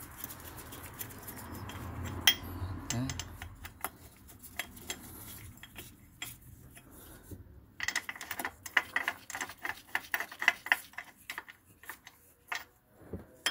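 Metal clicks and clinks of hand tools and bolts as the oil filter housing bolts on a BMW Z3 engine are tightened, with a quick run of clicks in the second half.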